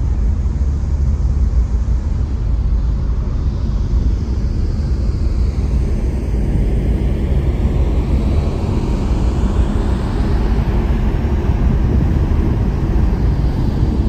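Sado Kisen ferry's diesel engines rumbling steadily, mixed with wind buffeting the microphone on the open deck.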